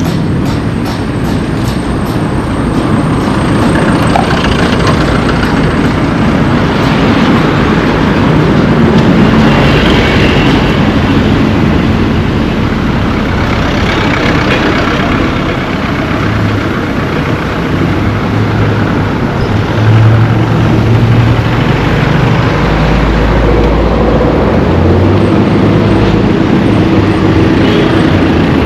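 Road traffic noise: vehicle engines and tyres passing close by, with a low engine hum growing stronger for a few seconds past the middle.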